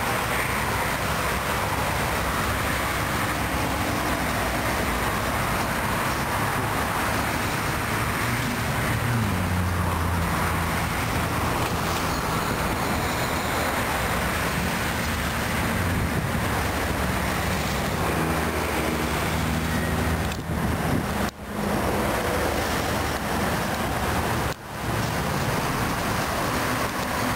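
Steady noise of busy highway traffic, cars and heavy trucks passing, with the low engine hum of a passing truck swelling about nine seconds in and again around eighteen seconds.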